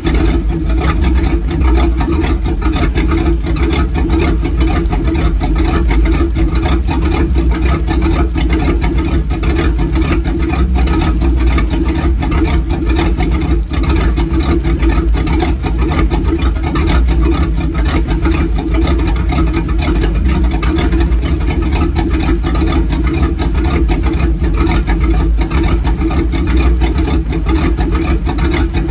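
Speedboat's inboard engine idling steadily while flushed with fresh water from a garden hose feeding the stern drive, run out of the water to rinse out salt water.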